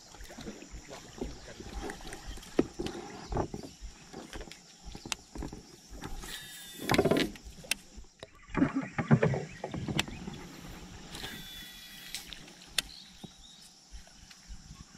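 Water sloshing and knocking around a small fishing boat, with scattered clicks and handling noise from rod and reel. Two brief high buzzing sounds come in, about six and eleven seconds in.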